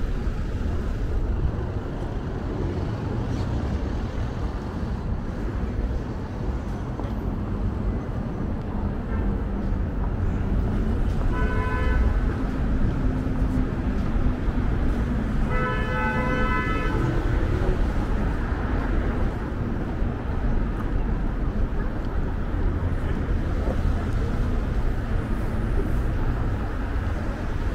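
Busy city street traffic: a steady rumble of passing cars, with a car horn honking twice, briefly about 12 seconds in and longer about 16 seconds in.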